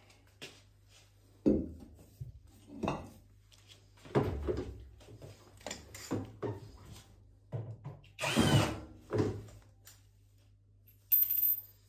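A cordless drill-driver run in a series of short bursts, stopping and starting, over a steady low hum.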